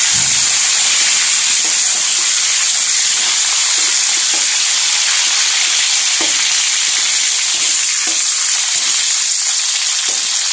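Chopped lemongrass and garlic sizzling steadily in hot oil in a pan, stirred with a spatula now and then.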